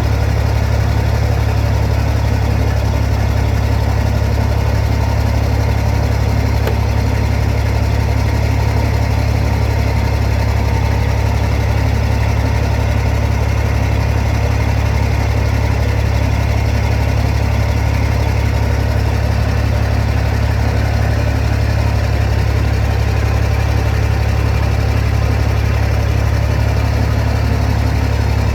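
Peterbilt 387 semi truck's diesel engine idling steadily, running to build air pressure in the air system after the cab air bag replacement.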